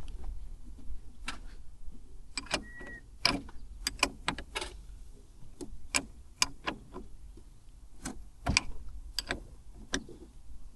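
Irregular metallic clicks and knocks of hand tools, such as a socket wrench, at work under the hood, with a brief ringing tone a little under 3 seconds in.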